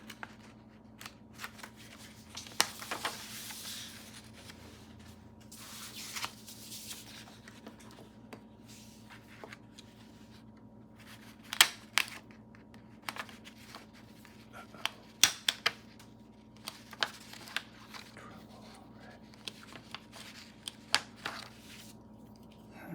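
Vintage staplers being pressed down on paper: sharp clacks at uneven intervals, a few much louder than the rest, with paper rustling and handling in between.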